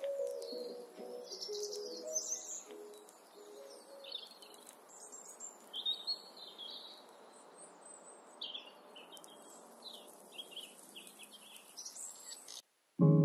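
Birds chirping over a soft, steady hiss, a nature-sound passage in a chill lo-fi hip-hop backing track, as the track's last notes die away in the first couple of seconds. The sound cuts out briefly near the end and the chords of the next track start.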